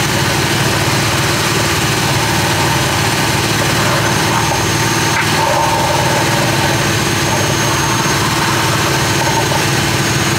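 Gas-engine air compressor running steadily at constant speed, a loud even drone, while it supplies air down the diver's hose.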